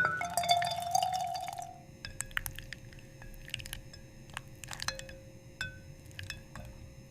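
AI-generated glass ASMR sound: crisp glassy clinks and ticks, a dense run with a ringing tone for the first couple of seconds, then scattered single ticks like drips on glass, some ringing briefly.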